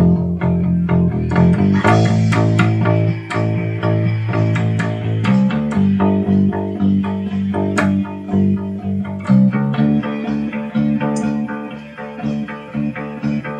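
Bass guitar playing a melodic part in a run of plucked, sustained notes.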